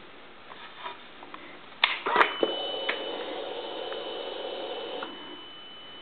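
Yamaha VMAX motorcycle switched on with the ignition key: a few light clicks, then a sharp click and clunk about two seconds in as the ignition comes on. A steady hum follows for about three seconds and then stops, the electric fuel pump priming, while a thin high whine goes on.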